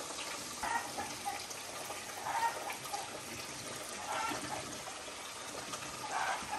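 Water being poured into a bamboo tube packed with soaked sticky rice, coming as several short gurgling pours.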